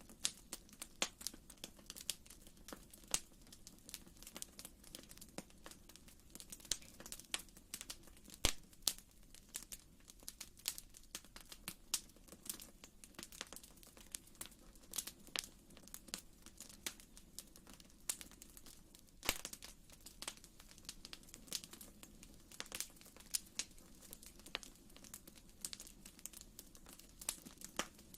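Wood fire crackling in a fireplace: irregular sharp pops and snaps, several a second, with a few louder snaps, over a faint steady low rumble.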